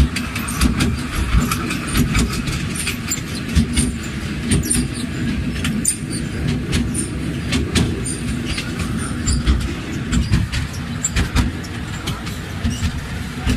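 Small open-carriage tourist train in motion: a steady low rumble with continual irregular rattling and clattering from the carriage.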